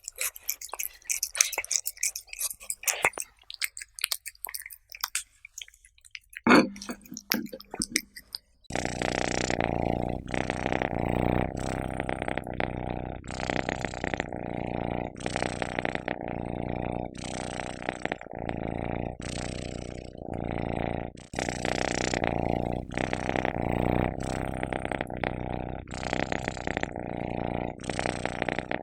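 Cats crunching dry kibble, quick crackling chews, with one loud thump about six and a half seconds in. About nine seconds in, the crunching gives way abruptly to a loud, continuous low rumble that swells in pulses about once a second.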